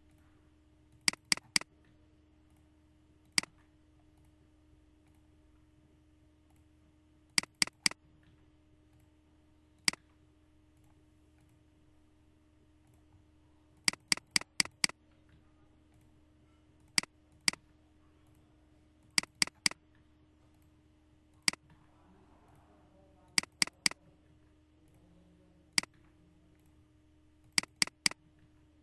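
Computer mouse clicking: sharp single clicks and quick runs of two to four clicks every few seconds, as email addresses are selected and copied. A faint steady hum runs underneath.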